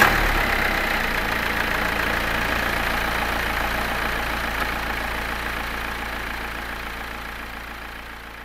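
Engine running steadily just after starting, slowly fading out.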